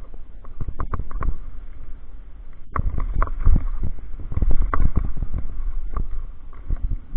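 Downhill mountain bike clattering and knocking over a rough gravel trail at speed, with irregular rattles from the bike over a constant low rumble.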